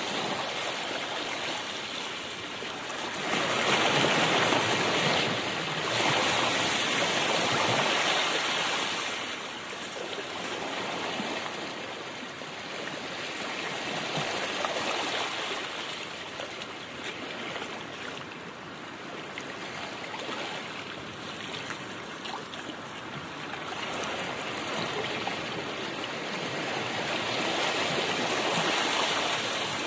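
Rushing road and wind noise of a moving car, heard from inside the car, swelling and fading over several seconds.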